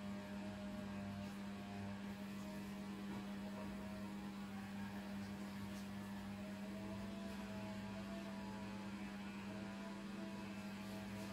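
A low, steady electrical hum, with fainter, slightly wavering tones above it.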